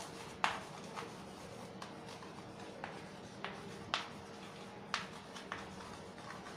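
Chalk writing on a blackboard, with irregular sharp taps and short scrapes as each letter is stroked out, over a faint steady hum.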